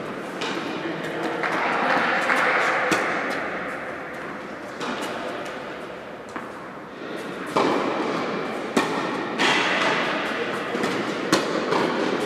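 Tennis balls struck by rackets and bouncing on the court: several sharp knocks at irregular intervals, echoing in a large indoor tennis hall.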